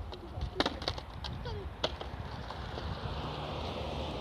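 Several sharp clacks of a skateboard on pavement in the first two seconds. Then a car drives past, its tyre and engine noise growing louder toward the end.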